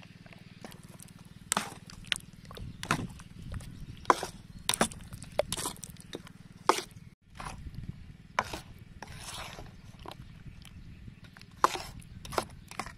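Metal spoon knocking and scraping against a stainless steel mixing bowl as fish pieces are stirred through thick egg batter, in irregular sharp clicks.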